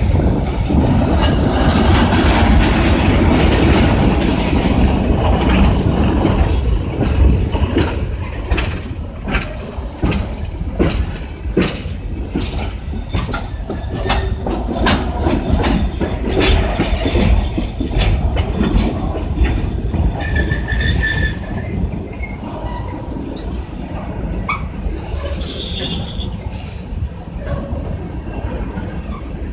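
Loaded coal hopper cars of a freight train rolling slowly past: a steady low rumble with sharp, irregular clacks as the wheels cross rail joints. A brief wheel squeal comes about two-thirds of the way through.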